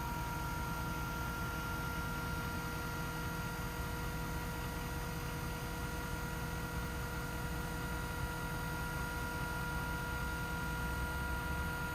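IMT electric-over-hydraulic crane running, its electric pump motor giving a steady whine over a low rumble, with no change in pitch.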